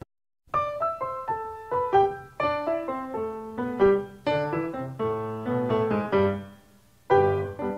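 Piano music: a melody of separate struck notes, each ringing and fading, with a short gap near the end before the playing picks up again.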